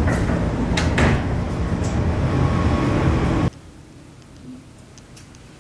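A loud, dense low drone with a couple of sharp knocks about a second in, cutting off abruptly about three and a half seconds in and leaving quiet room tone.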